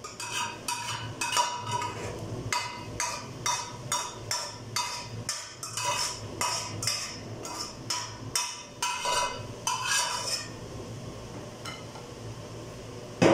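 A spoon scraping and stirring mung beans in a steel pot, in regular strokes about two or three a second that stop about ten seconds in. A loud knock comes near the end.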